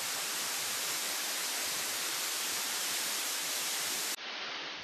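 Steady rushing hiss of falling water, even and without rhythm. About four seconds in its top end suddenly dulls, and it fades near the end.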